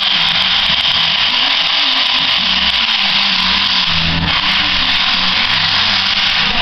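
A power tool running steadily with a loud, hissing whir, dipping briefly about four seconds in.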